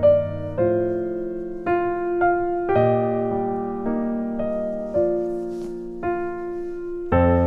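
Background music: slow piano music, notes and chords struck roughly once or twice a second and left to fade.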